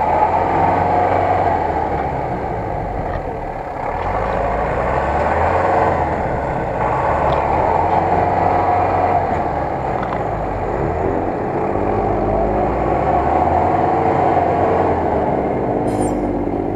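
Turbocharged GAZ-66 truck's engine working hard as the truck churns through deep mud, its revs rising and falling, with a rise about two-thirds of the way in.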